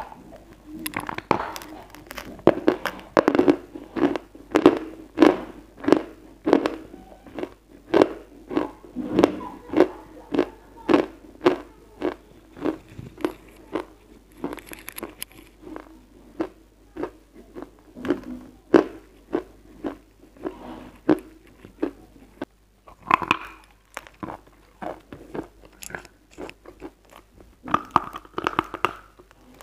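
Close-miked crunching and chewing of lumps of white chalk: sharp crunches about twice a second, a short lull a little past two-thirds of the way through, then a fresh loud bite and more crunching.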